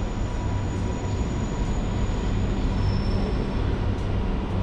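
Train running with a steady rumble and faint high steady tones.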